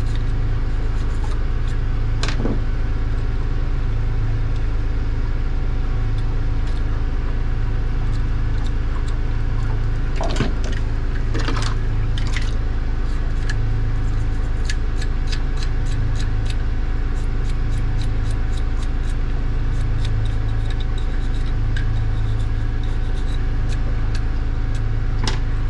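A sailboat's engine running with a steady low drone, heard from inside the cabin. Small clicks and taps come over it as the speed-log paddlewheel is handled and cleaned, with a few sharper ones and a run of light ticks in the second half.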